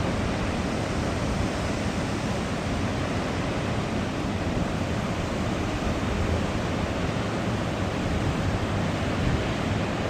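Wind buffeting the microphone over a steady rushing hiss, with no distinct events.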